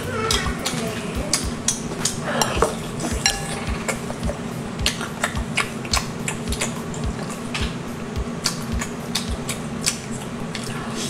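Close-up chewing of spicy sea-snail (conch) meat, with frequent irregular wet mouth clicks and smacks, several a second.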